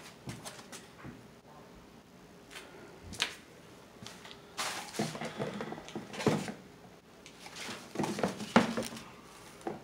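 Scattered knocks, clicks and rustles of handling, ending in sharper clicks as a hand tool works at a plastic electrical box with its wires; the loudest click comes near the end.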